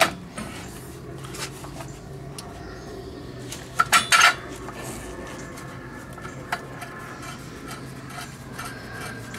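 Metal clinks and taps of a clutch puller and hand tools being fitted into a Polaris RZR Turbo's primary clutch, with a quick cluster of three sharp clinks about four seconds in and a single clink later.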